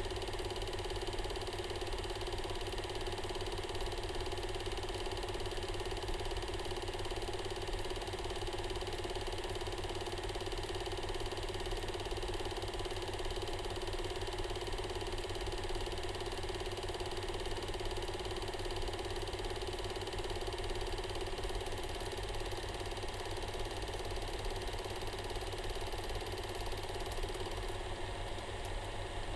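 Film projector running steadily: a fast, even mechanical clatter over a constant hum.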